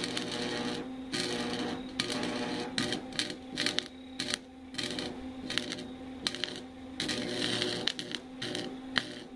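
Wire-feed welder arc crackling and sputtering in uneven stop-start bursts on a steel pot, over a steady electrical hum. The sputter comes from too much wire tension on the feeder, with the power set too high.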